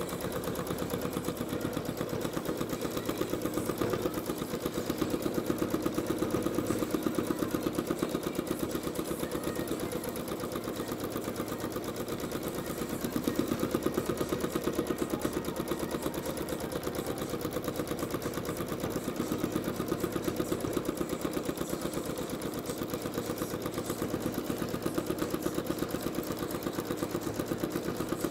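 Janome Skyline S9 sewing machine free-motion stitching with a spring-loaded darning foot: a rapid, even run of needle strokes, swelling a little louder a few times.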